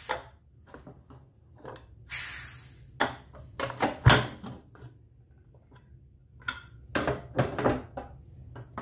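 A pressure cooker being opened: a short hiss of steam escaping about two seconds in, then metal clicks and knocks as the lid is worked loose and lifted off, the loudest a sharp clack about four seconds in.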